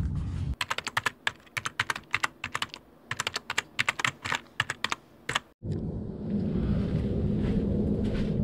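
Keyboard typing sound effect: a quick, irregular run of clicks lasting about five seconds, which cuts off suddenly and gives way to a steady low background rumble.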